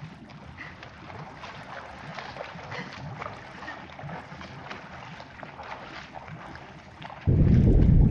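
Watery sound-design ambience: a crackling hiss full of small clicks, then about seven seconds in a sudden loud, low rush of water.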